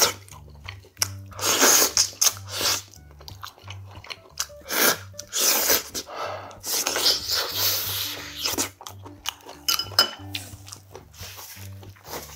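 Close-up eating sounds of a man biting and chewing meat off a pork neck bone from gamjatang, coming in separate loud mouthfuls. Background music with a steady low beat runs underneath.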